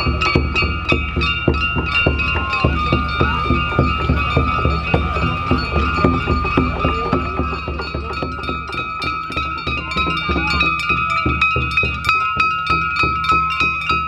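Many small handheld brass gongs struck rapidly and continuously, their ringing layered over a steady drumbeat: a Shinto festival procession's gongs and drums, which are very loud.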